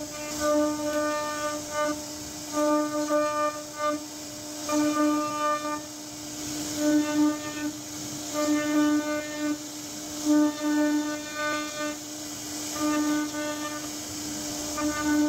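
CNC router spindle running at a steady high-pitched whine while its bit carves a hardwood door panel. The whine grows fuller and louder in spells of about a second, roughly every two seconds, as the cutter bites into the wood, over a hiss of cutting.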